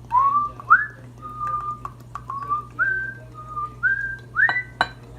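A person whistling a tune: a string of notes, each sliding up into a held pitch. Two sharp clicks sound near the end.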